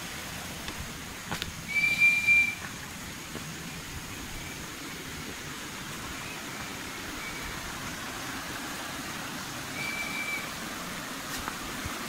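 Two short, flat, high whistles about eight seconds apart, the first the louder. A steady rushing hiss runs underneath.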